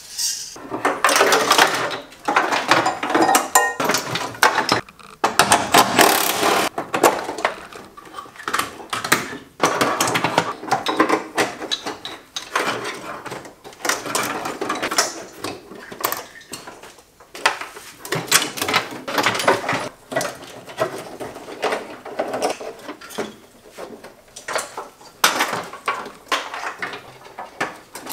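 A car wiring harness being handled and fitted by hand: irregular rustling, clicking and knocking of wires, plastic connectors and clips against the car's body panels.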